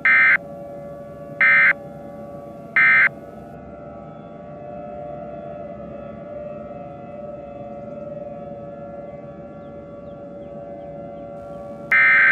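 Three short, harsh Emergency Alert System data bursts about a second and a half apart, the end-of-message code that closes an alert, followed by a steady siren-like drone. A longer data burst begins near the end, the start of the next alert's header.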